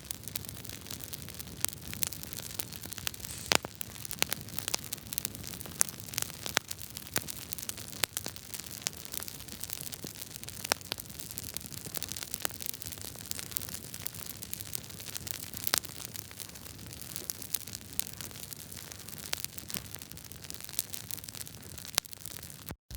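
Wood fire crackling: frequent sharp pops and snaps over a steady hiss. The sound cuts out for an instant near the end.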